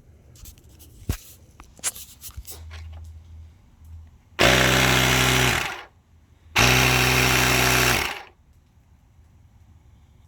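Portable digital air inflator's compressor running in two short bursts of about a second and a half each, pumping air back into the inflatable wedge. A few light handling clicks come before it.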